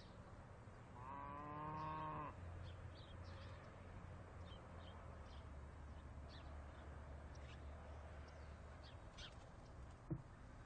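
A cow moos once, about a second in, a single call of just over a second. Afterwards a low steady hum runs for several seconds under scattered short bird chirps, and a sharp click sounds near the end.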